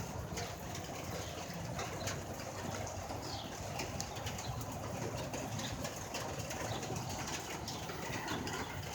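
Steady rain falling, with scattered drips ticking, and birds calling now and then.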